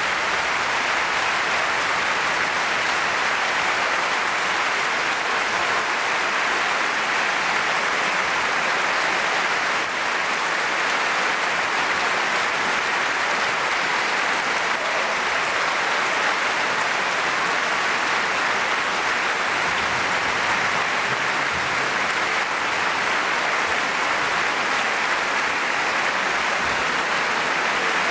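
Large concert-hall audience applauding, a steady unbroken wash of clapping.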